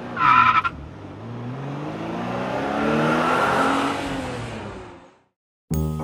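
Car sound effect: a short tire squeal, then an engine revving, its pitch climbing and then dropping as it fades out. Music starts right at the end.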